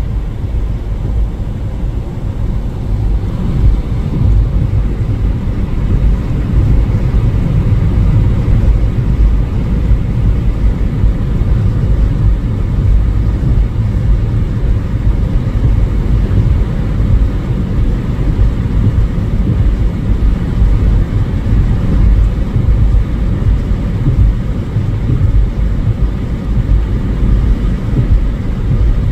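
Storm wind buffeting the microphone: a loud, continuous low rumble that surges and flickers throughout.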